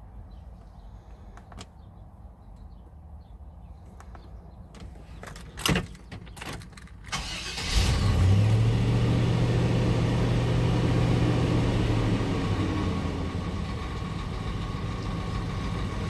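A few light clicks and a sharp knock, then a 1999 Chevrolet Suburban's 5.7-litre V8 cranks and starts about seven seconds in and settles into a steady idle.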